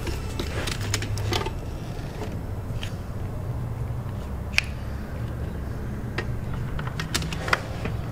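Scattered sharp plastic clicks and light knocks as hands work the wiring connectors and plastic ECU box, over a steady low hum.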